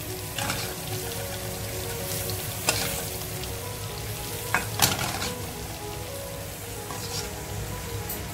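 Small onions, curry leaves and chilli powder sizzling steadily in hot coconut oil in a metal pan: the tempering for a Kerala fish curry. A few sharp clinks of a spoon against the pan come about three and five seconds in.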